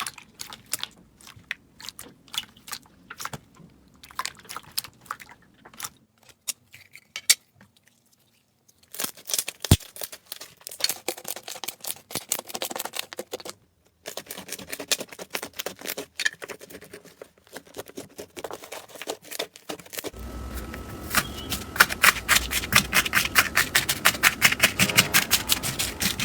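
Slime being squeezed and pressed by hand, giving quick runs of crackly clicks and pops, in several separate takes; the last few seconds are louder and denser.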